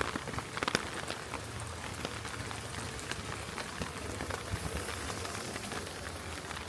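Heavy rain falling: a steady, dense patter of drops, with a few sharper drop hits in the first second.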